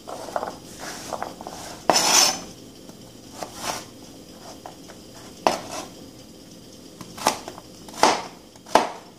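Chef's knife chopping through raw carrot onto a cutting board: about eight separate, irregularly spaced strokes, with a longer, louder one about two seconds in.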